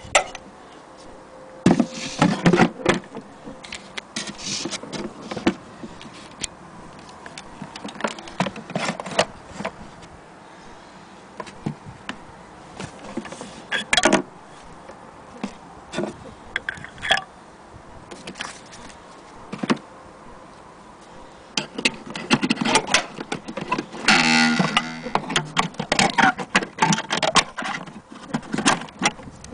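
Irregular clicks, knocks and rattles of a Singer sewing machine and its carrying case being handled, with a longer stretch of rattling and scraping a little after twenty seconds in.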